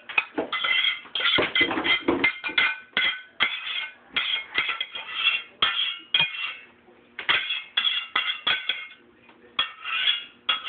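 Metal spoon scraping and clinking against a stainless steel pot as thick sour cream sauce is scraped out, in many quick, irregular strokes with a ringing tone and a short pause a little past the middle.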